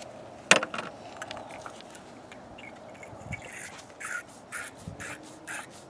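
Battery terminal cleaner's wire brush scraping the inside of a battery cable terminal in short, quick strokes, to strip corrosion and rough the metal for a better connection. A sharp click comes about half a second in, and the strokes bunch up near the end.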